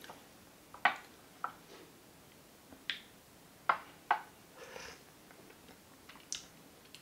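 Small porcelain tea cups and a glass pitcher clinking against each other and the tea tray: about six short, sharp clicks. A brief sip of tea about four and a half seconds in.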